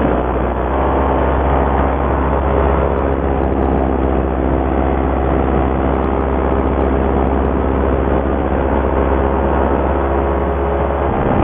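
Paramotor's Simonini two-stroke engine and propeller running steadily in flight, a continuous even drone with a strong low hum.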